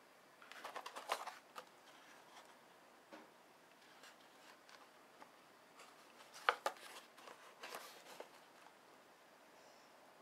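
Stiff plastic blister pack on a cardboard backing card being handled: crinkling and clicking in a burst about a second in and again from about six to eight seconds in, with one sharper click near six and a half seconds.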